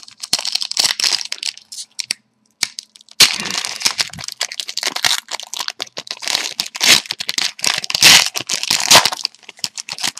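Hockey card pack wrappers being torn open and crinkled by hand, a dense run of crackling rustles with many sharp clicks, heaviest in the second half.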